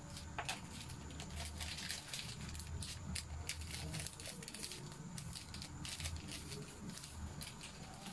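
Broth with chicken balls simmering in a stainless steel pot: irregular small pops and crackles of bubbling liquid over a low steady rumble.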